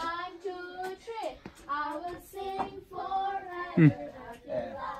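Children singing, high voices holding short, steady notes, with a louder voice sliding down in pitch near the end.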